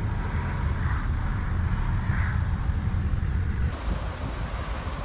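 Steady low road and engine rumble heard from inside a moving car. The sound changes abruptly about three and a half seconds in.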